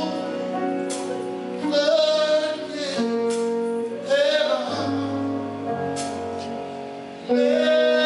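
Gospel music: a man singing into a microphone over sustained keyboard chords that change every second or two.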